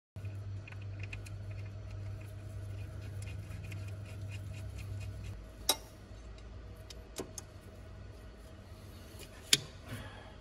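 Light metallic clicks and taps of hand tools and timing locking pins being handled at the timing gear of a VW 2.0 TDI engine during a timing belt fit. Two sharper metal clicks stand out, one about halfway and one near the end, over a low steady hum that drops away about halfway.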